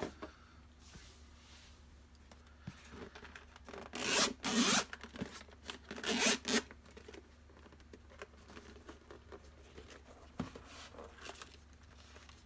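Zipper of a semi-hard, carbon-fibre-look gimbal case being drawn open around its edge in several pulls, the longest and loudest about four and six seconds in.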